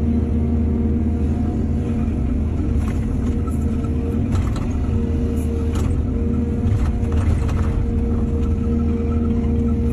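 Excavator's diesel engine running steadily, with several short clanks and rattles in the middle.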